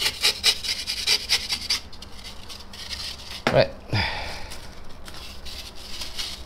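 A snap-off craft knife blade scraping and slicing through polyurethane foam in quick short strokes for about the first two seconds. About halfway through comes a short sound falling in pitch, followed by fainter rubbing as the foam block is handled.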